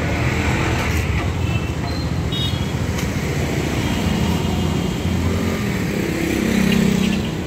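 Steady roadside traffic noise: motor vehicle engines running, with one vehicle growing louder about six seconds in.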